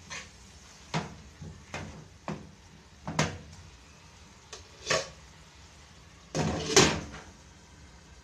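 A wooden spatula knocks and scrapes against a non-stick frying pan while stirring ground pork, a sharp tap roughly every second. Near the end a glass lid is set down on the pan with a louder clatter.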